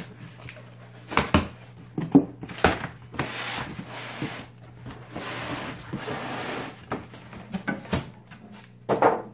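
Cardboard shipping box being opened by hand: knocks and scrapes as the flaps are pulled back, then rustling and rubbing as a styrofoam cooler lid is worked loose and lifted out.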